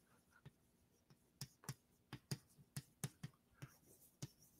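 Chalk tapping and scraping on a blackboard as a word is written: a string of faint, irregular clicks.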